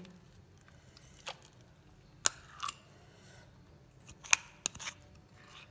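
A few short, sharp clicks and light taps over a low hum as almond paste is scraped by hand into a kadai of hot ghee.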